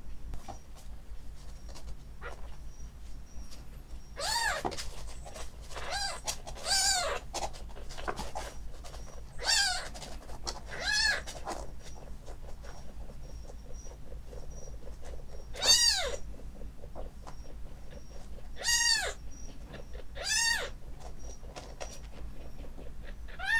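Kitten about two weeks old mewing: short, high calls, about eight of them, each rising then falling in pitch. Its carer takes them as a call for milk.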